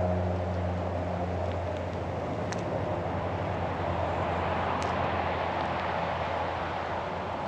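A vehicle engine running steadily, its low hum fading over the first couple of seconds, under a steady rushing noise.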